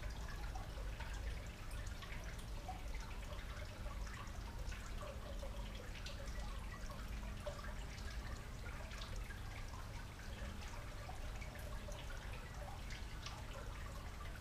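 Faint, steady trickling and dripping of water, over a low steady rumble.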